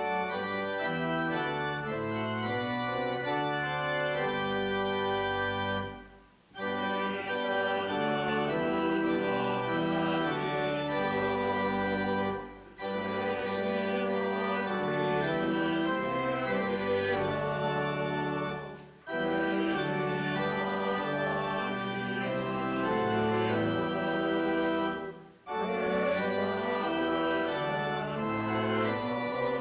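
Organ playing sustained chords in phrases about six seconds long, with a brief break between each phrase.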